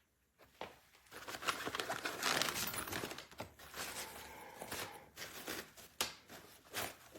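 Rustling, crinkling handling noise of a suitcase's fabric lining and compartments being moved about, with a few sharp clicks near the start and near the end.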